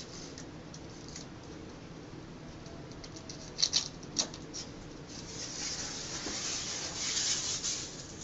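A few sharp clicks, then a steady raspy hiss from about five seconds in: a knife blade drawn through self-adhesive fabric wallcovering to trim off the excess in a corner.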